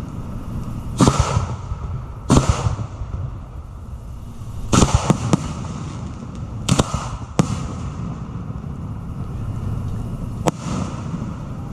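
Aerial fireworks going off in a series of sharp bangs, each trailed by a brief hiss, with a quick cluster of several cracks about five seconds in.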